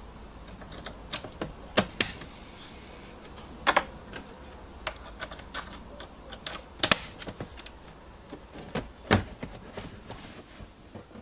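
Irregular sharp plastic clicks and taps from a car instrument cluster being reassembled by hand, with a screwdriver working at it; a few clicks are much louder than the rest.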